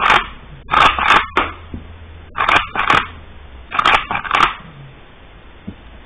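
Saiga .223 rifle's charging handle racked back and released by hand four times, each a pair of sharp metal clacks as the bolt carrier goes back and slams forward, cycling and ejecting loaded cartridges during a function test.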